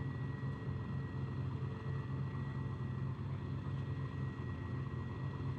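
Chevrolet Corvette's V8 engine idling steadily at the drag strip start line.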